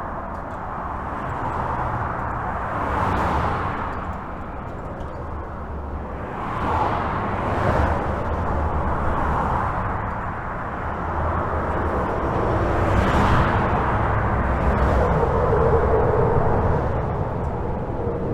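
Highway traffic heard from under a bridge: a continuous rumble of tyres and engines, swelling as individual vehicles pass every few seconds. A humming tone joins in near the end as one vehicle passes.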